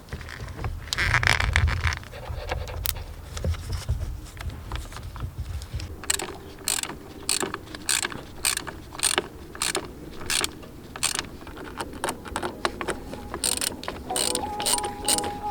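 Hand ratchet being worked in repeated strokes, each stroke a short run of clicks, about two a second through the second half.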